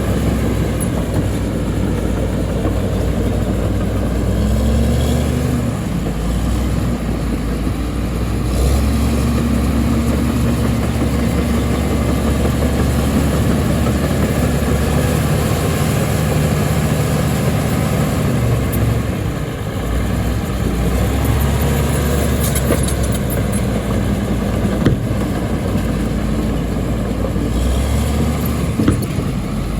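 Heavy earthmoving machine's diesel engine running, its engine speed shifting up and down several times, with a couple of short sharp knocks late on.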